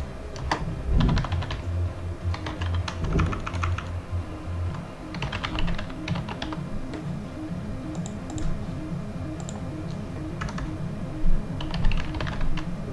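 Typing on a computer keyboard in several short bursts of rapid key clicks, over quiet background music with a steady repeating beat.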